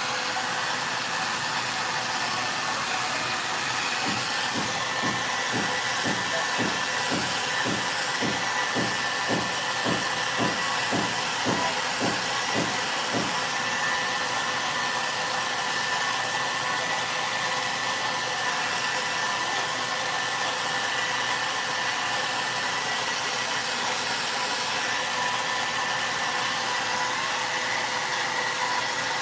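VONE handheld hair dryer running steadily: a continuous rush of air with a steady motor whine. For about ten seconds in the first half, a soft pulsing about twice a second rides under it.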